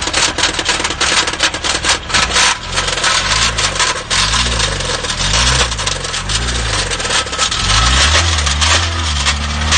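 Subaru engine with a hole in the top of its block running with a loud, rapid rod knock: a clattering metallic hammering from a failed connecting rod. From about two and a half seconds in the engine is revved up and down several times, then held at a steady higher speed near the end.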